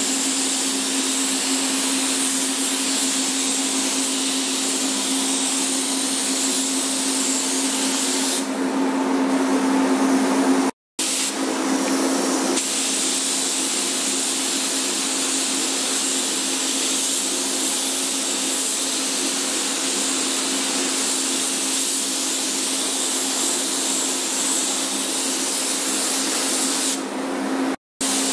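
Gravity-feed paint spray gun hissing steadily as it sprays paint, over a steady low hum. The sound drops out briefly twice, about 11 seconds in and near the end.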